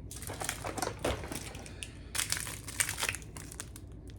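Plastic candy packaging crinkling as it is handled, in irregular bursts of crackles that are busiest in the middle.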